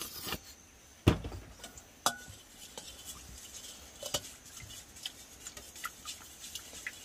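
A short squirt from a squeeze bottle of barbecue sauce, a loud thump about a second in as the bottle is set down, then a metal spoon clinking and scraping in a stainless steel mixing bowl as the sauce is stirred.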